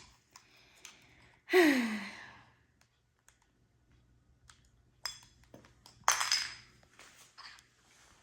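Light plastic clicks and taps as a toy dinosaur's snap-on parts are pushed together and will not seat. About a second and a half in there is one falling vocal sigh, the loudest sound, and near six seconds a short hiss.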